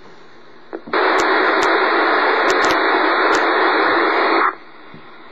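Radio receiver static: a low hiss that jumps to a loud rush of noise about a second in, with a few sharp crackles, and drops back to the low hiss after about three and a half seconds.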